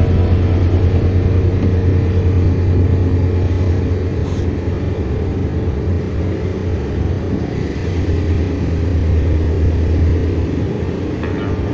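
Car engine and road noise heard inside the cabin while driving: a steady low rumble.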